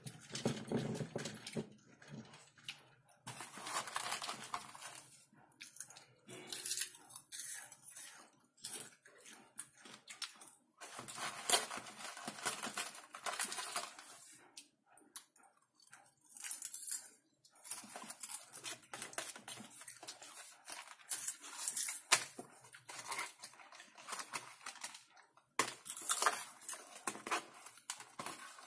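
Close-up crunching and rustling of caramel popcorn in irregular bursts: a hand rummaging through the glass bowl and the crisp popcorn being chewed.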